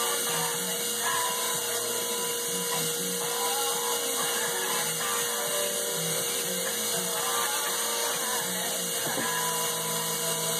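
Dual-action sander running steadily over a cast aluminium ProCharger supercharger housing: the final sanding step, taking out the rough sanding marks to get the surface flat and smooth before polishing.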